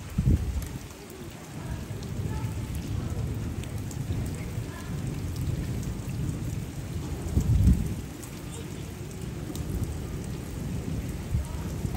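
Steady heavy rain pouring onto a flooded paved lane. Two brief low rumbles stand out, one just after the start and a louder one about seven and a half seconds in.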